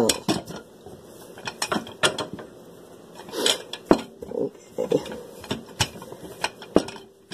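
Dough being rolled out on a kitchen counter with a rolling pin: a run of irregular light clicks and knocks, several a second.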